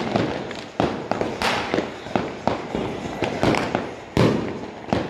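Many fireworks and firecrackers going off across a city: irregular bangs of varying loudness, each trailing off in echo, with the loudest about four seconds in.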